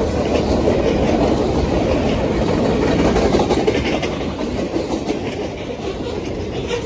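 Freight train cars (boxcars, autoracks, a tank car) rolling past at speed: a steady rumble with the clatter of steel wheels on the rails.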